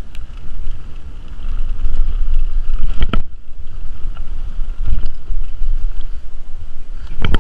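Mountain bike ridden fast down a dirt forest trail: wind buffeting the microphone with a steady rumble, and sharp knocks from the bike over bumps about three seconds in, at about five seconds and again near the end.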